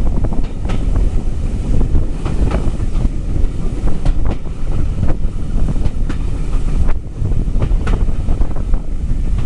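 Train running along the line: a steady low rumble with wind buffeting the microphone, and irregular sharp clicks from the wheels, about one or two a second.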